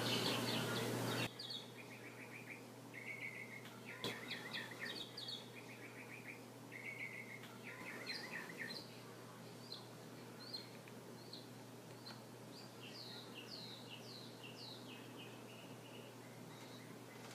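Small bird chirping, with short rapid trills and quick falling whistle notes on and off, over a faint steady hum. A louder hiss cuts off about a second in.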